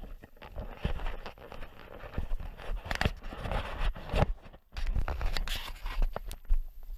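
Footsteps walking quickly through dry pasture grass: irregular crunching, scraping and rustling close by, with low thumps from the footfalls.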